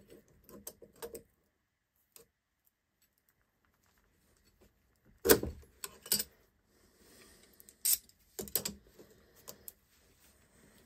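Steel hand tools clinking against the clutch front plate of a Denso AC compressor as a 10 mm spanner works the centre nut while pliers hold the plate. Light clicks come first, then a quiet stretch, then several sharp metallic clinks from about five seconds in.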